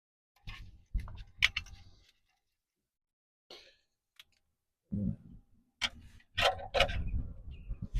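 Metal tools and car parts being handled: irregular clicks, clinks and dull knocks in two busy bursts, with a couple of lone ticks between them.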